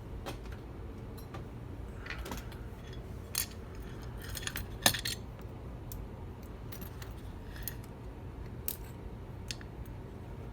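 Small metal objects clicking and clinking against each other and a hard surface as a lock and lock-picking tools are handled and set down, with the sharpest clink about five seconds in.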